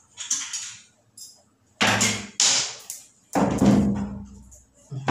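Four loud bangs with rattling tails, roughly a second apart, as of boards and wire panels being knocked about while an old cat house is taken apart.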